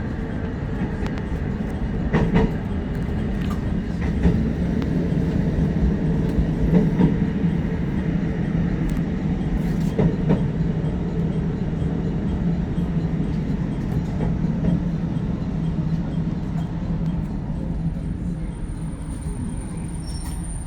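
JR Hokkaido electric commuter train running on rails, heard from inside the carriage: a steady rumble and hum, with sharp clicks from the wheels a few times. It grows slightly quieter near the end.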